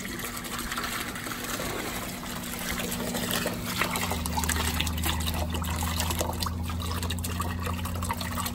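Water trickling and splashing in a shallow, draining koi pond, over a steady low mechanical hum that deepens about four seconds in.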